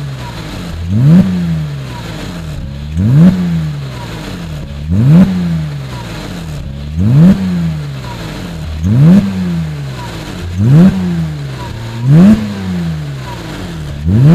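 Porsche Cayman 2.7's flat-six engine free-revved through a custom stainless-steel twin-tip sport exhaust: repeated sharp throttle blips about every two seconds, each one climbing quickly and dropping back to idle.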